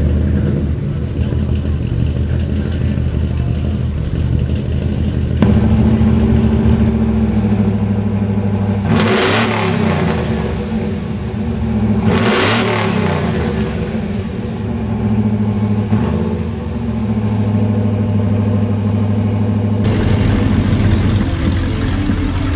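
Lifted mud trucks' engines running. A black Chevy pickup idles first; then a white Ford idles and is revved hard twice, about three seconds apart; near the end a V8 Dodge-powered mega mud buggy runs past.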